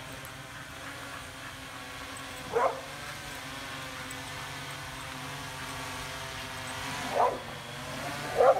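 Steady multi-tone whine of a hovering drone's propellers, with a dog barking at it three times: once about a third of the way in and twice near the end, the last bark the loudest.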